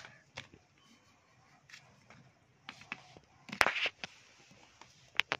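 Light handling sounds as jumbo wax crayons are laid down on a card drawing: scattered soft taps and scrapes, a louder clatter about three and a half seconds in, and two sharp clicks near the end.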